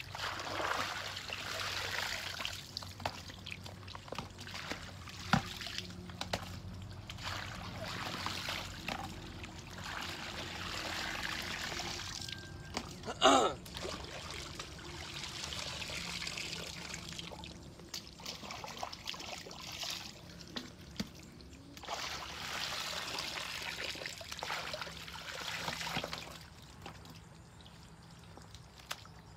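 Shallow muddy water splashing and trickling as a person wades and scoops through the mud, in bouts of a few seconds with quieter gaps between. A single sharp knock stands out about 13 seconds in.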